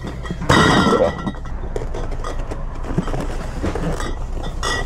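Glass beer bottles clinking and rattling in a case as it is handled, with one loud clattering rattle about half a second in and small clinks after, over a steady low hum.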